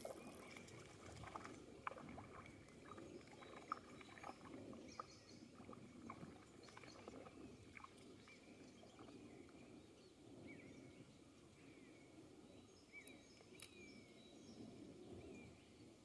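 Near silence: faint outdoor ambience with a few short, distant bird chirps and scattered small clicks.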